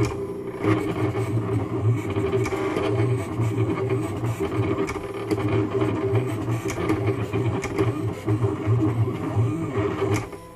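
Silhouette Cameo 2 vinyl cutter at work: its stepper motors whir and change pitch as the blade carriage shuttles back and forth along the rail. The sound drops away briefly near the end.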